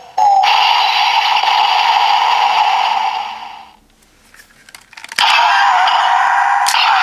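Electronic sound effects played through the small speaker of a DX Ryusouken toy sword with a Ryusoul loaded. Two long sound effects, the first stopping at about three and a half seconds and the second starting just after five seconds, with a few sharp plastic clicks of the toy being worked in the gap between them.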